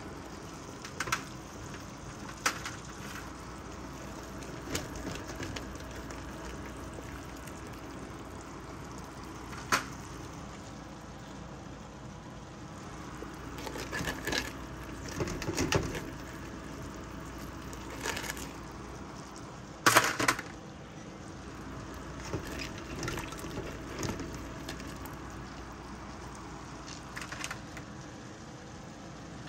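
Kitchen tongs clacking against the pot and crab shells as boiled crabs are lifted out of the broth, a dozen or so scattered knocks with a cluster midway and the loudest about twenty seconds in, over a steady background hum.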